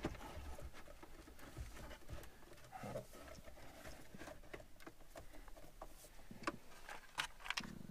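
Faint clicks, taps and scraping as a car stereo's metal chassis and its wiring are pushed back into the plastic radio slot of a 1999 Subaru Forester's dash. A few sharper clicks come near the end.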